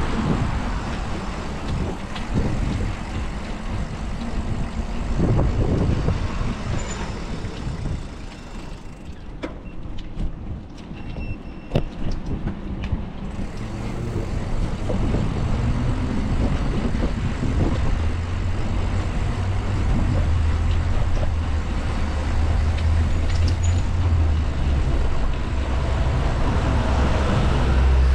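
Road traffic with wind buffeting the microphone. In the second half a large vehicle's engine runs close by with a steady low hum that grows louder toward the end.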